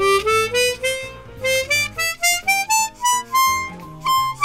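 Hohner Xpression 12-hole chromatic harmonica played softly in a rising scale of separate single notes, climbing steadily from the middle register toward the treble: a low-volume test of how evenly the reeds speak.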